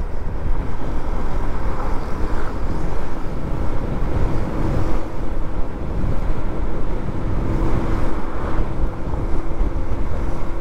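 Motorcycle riding at road speed: a steady rush of wind on the microphone over the engine's even hum.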